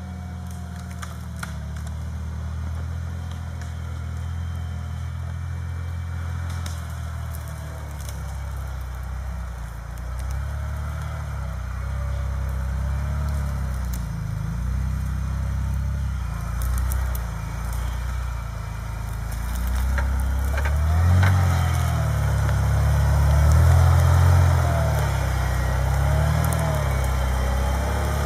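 Engine of a modified off-road truck running at low speed, its revs rising and falling as it crawls over rough ground, growing louder as it comes closer. Occasional sharp cracks of branches under the tyres.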